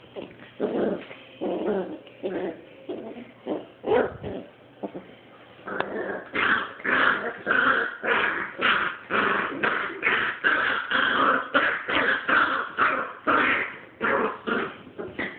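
Dogs growling and snarling in a rough play fight: a puppy worrying an older dog. Low growls come first, then from about six seconds in a rapid run of sharper, higher snarls and yaps.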